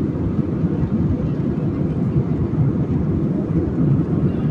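Steady cabin noise of a jet airliner in flight, heard from inside the cabin: an even, low rumble of engines and rushing air.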